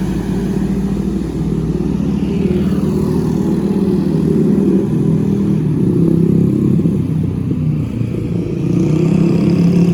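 Bus diesel engine running close by, a loud, steady, rattling rumble.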